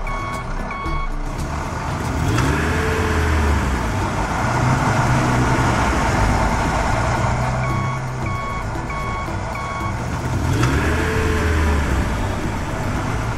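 Truck sound effects: a low diesel-engine rumble with a reversing alarm beeping in short even runs, once at the start and again about eight seconds in, over a rushing noise of gravel pouring out of a tipping dump bed.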